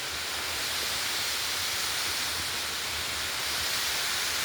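Steady rush of water tumbling down a waterfall, an even hiss that holds level throughout.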